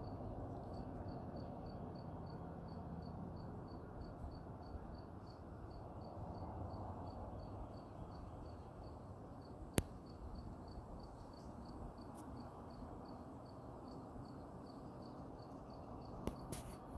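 An insect chirping steadily, a short high chirp about two and a half times a second, over a low steady rumble. One sharp click about ten seconds in is the loudest sound.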